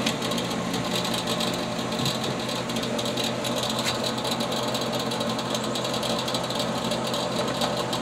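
Steady mechanical hum, even in level, with a low drone under a higher hiss.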